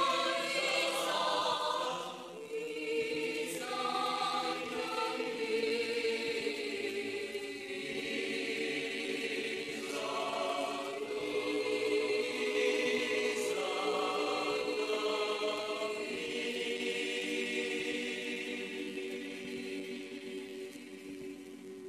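Choir singing a slow chant, voices holding long notes over a steady drone and fading away near the end.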